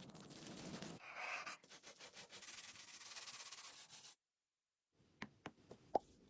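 Faint scratchy rubbing strokes, like hand sanding on a surface. They break off into about a second of total silence, followed by a few sharp clicks near the end.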